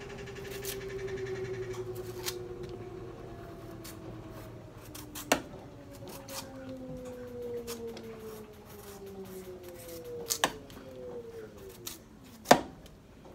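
Kitchen knife cutting a yellow squash, with a few sharp clicks and taps of the blade against the cutting board, the loudest about five, ten and twelve seconds in. Under it, a machine's hum falls slowly in pitch as something winds down.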